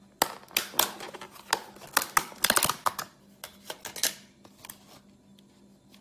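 Snap-on lid of a rigid plastic takeaway food container being pried off and lifted away: a quick run of sharp plastic clicks and crackles, thinning out to a few separate clicks near the end.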